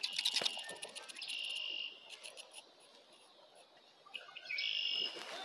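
An insect's buzzing call in two short bursts, about a second in and again near the end, after a quick run of clicks at the start.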